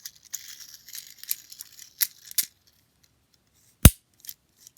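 Fidget toys being handled: a light rustle, then a few sharp clicks, the loudest a little under four seconds in.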